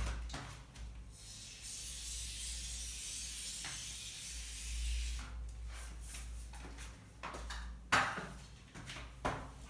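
Scattered knocks and clatter, the loudest about eight seconds in, with a stretch of rubbing, scraping hiss near the start over a low rumble.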